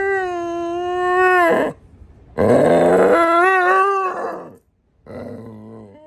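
Pit bull howling three times: a long steady howl, a second, louder one that rises at its start and then wavers, and a fainter third howl near the end.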